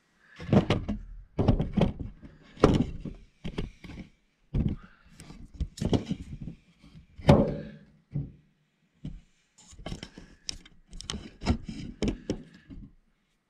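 Many irregular knocks and thunks of handling and bumping inside a front-load washing machine's cabinet, the loudest about seven seconds in.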